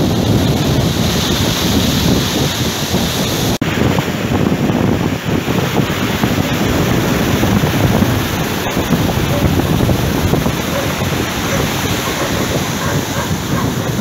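Rough sea surf breaking and washing up a dark pebble shore, with wind buffeting the microphone.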